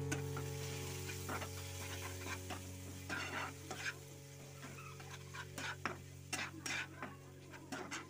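Spatula stirring and scraping thick onion masala around a nonstick kadhai: a string of short scrapes that come more often from about three seconds in, over a fading music chord.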